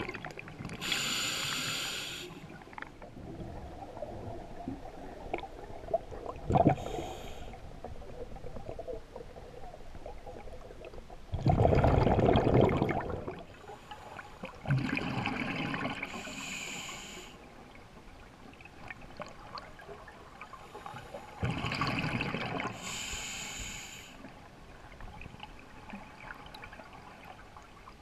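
Sidemount scuba diver breathing through an open-circuit regulator underwater: a hissing inhalation and a rush of exhaled bubbles every few seconds.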